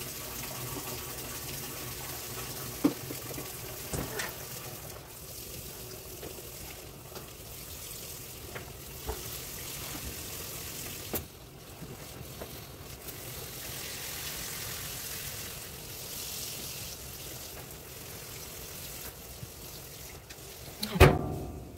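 Top-loading washing machine filling with water, a steady rush of water into the tub, with occasional light clicks and handling knocks as laundry goes in. There is one loud sharp knock near the end.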